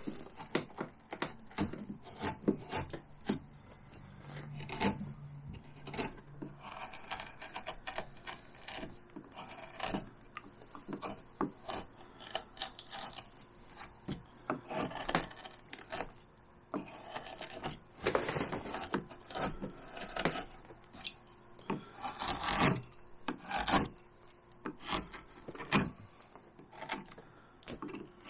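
Hand carving gouge cutting and scraping cottonwood bark in many short, irregular strokes.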